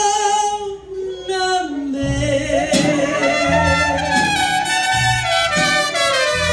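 Live mariachi band playing: trumpets carry the melody over strummed guitars, with low bass notes coming in about two seconds in.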